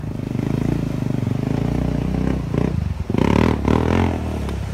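ATV engine running and revving as the four-wheeler drives through a shallow creek. A louder spell of engine and water splashing comes about three seconds in.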